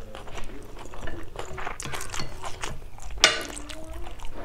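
Close-miked chewing of chicken, rice and onion salad: a run of small wet mouth clicks and crackles. About three seconds in, a single sharp clink as a metal spoon is set down on a ceramic plate.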